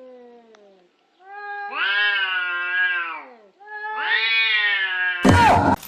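A cat meowing: the fading end of a falling call, then two long, drawn-out meows of about two seconds each. A loud burst of noise cuts in near the end.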